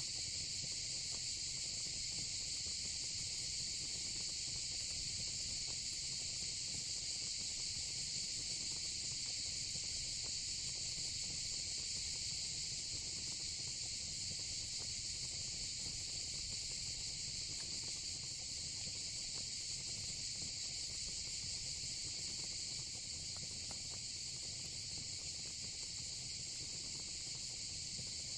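A steady, unbroken chorus of crickets chirring high and even, over the low rumble of a fire pit with a few faint crackles.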